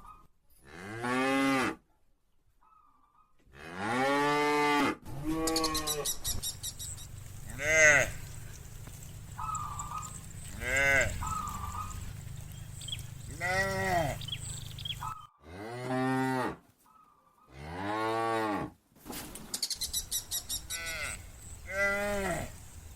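Cows mooing over and over, about ten long calls, each rising and then falling in pitch.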